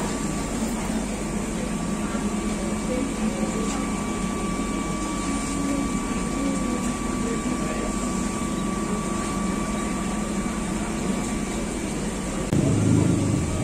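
Steady machine hum with a thin, constant high whine: the running equipment of an aquarium shop, such as air pumps and fans. A louder low rumble comes in near the end.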